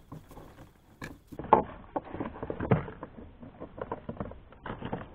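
Irregular knocking and rustling as hands work a caught fish in a landing net against the side of a kayak, starting about a second and a half in.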